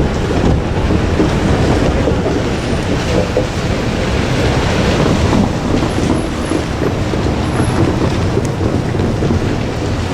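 JR Kyushu 817 series electric train running past on the line, a steady rumble with wind buffeting the microphone.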